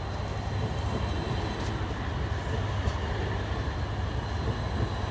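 Edinburgh tram, a CAF Urbos 3 light-rail vehicle, passing close by with a steady rumble from its wheels on the street rails. A few faint clicks sound along the way.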